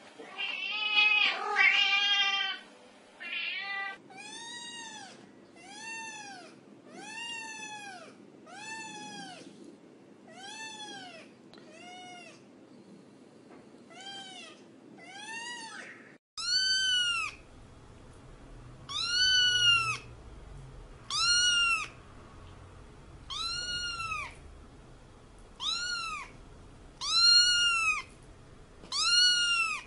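A cat meowing over and over: a longer wavering meow at the start, then short meows that rise and fall in pitch, about one a second. About halfway through the background changes abruptly, and higher-pitched, louder meows follow about every second and a half.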